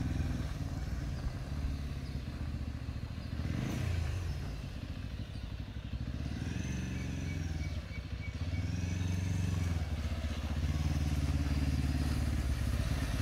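Motorcycle engine of a cruiser converted to a three-wheeler, running as it is ridden around at low speed. Its note rises and falls twice around the middle.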